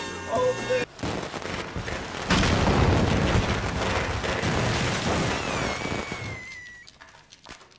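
A piñata blowing up: a short hiss, then a loud blast about two seconds in, fading slowly over several seconds, with a falling whistle near the end.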